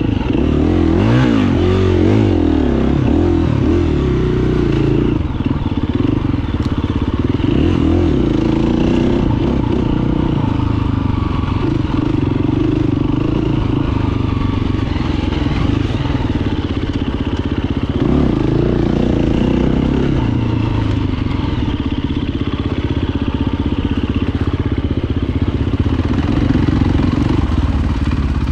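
Dirt bike engine running under the rider, revving up and down as it works along a rough dirt trail. The pitch swells up and falls back several times near the start, around eight seconds in and again around eighteen seconds in, between stretches of steadier running.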